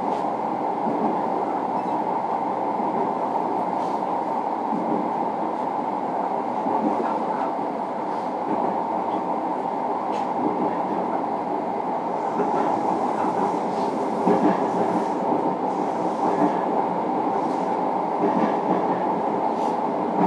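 Running sound inside a JR Kyushu 305 series electric train's motor car: a steady rumble of wheels on the track, with a few faint clicks.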